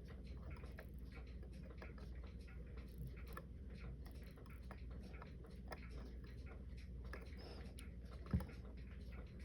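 Faint, irregular small clicks and taps of tools handling watch parts during the disassembly of a Citizen Leopard Diver wristwatch, with one short, louder knock near the end.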